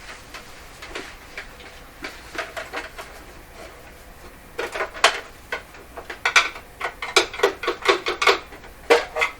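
A radio chassis being pushed and worked loose from its cabinet: a run of irregular knocks and clicks, sparse at first, then coming thick and fast over the last half.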